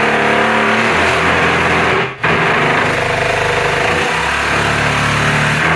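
Corded power tool running loudly with a motor's shifting hum, stopping briefly about two seconds in and starting again.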